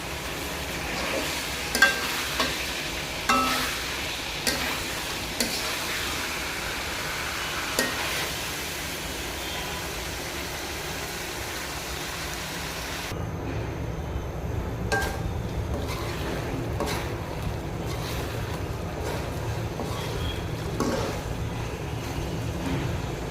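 Masala chicken curry frying in a pan as it is stirred, with sharp clicks and taps of the spoon against the pan. About halfway through, the sizzle turns duller, over a low rumble.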